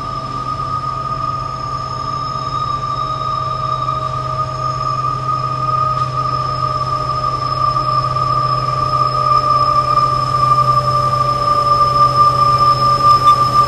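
Train passing with a low rumble and a steady high-pitched squeal, growing gradually louder as it comes closer.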